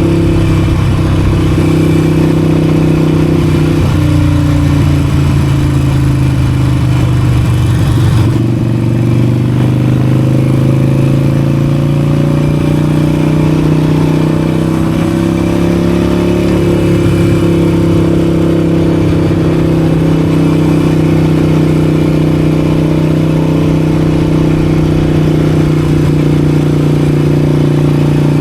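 Harley-Davidson Forty-Eight's 1200 cc air-cooled V-twin running under way, heard through a mic inside the rider's helmet. The engine note holds steady, dips about eight seconds in, then climbs back up and settles.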